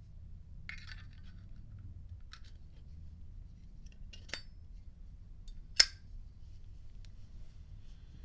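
A Zippo windproof lighter being handled: a brief faint scrape, then a few small clicks, with one sharp click a little before six seconds.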